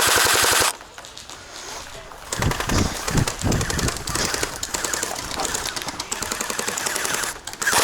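Electric gel blaster (Jingming Gen 10 ACR) firing full-auto: a loud, rapid burst that stops about half a second in. After a short pause, rapid gel blaster fire comes back quieter and keeps going for several seconds.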